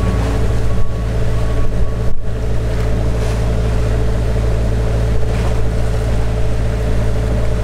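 Sailing yacht under way, with a steady low drone of its engine running and wind and water rushing past.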